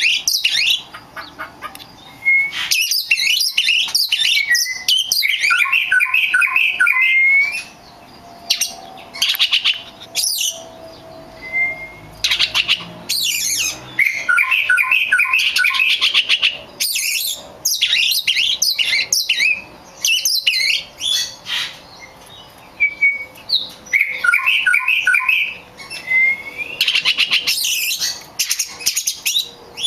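Birds chirping and calling in busy, overlapping bursts of short, high notes, with a stepped phrase that recurs about three times and short rising whistles in between.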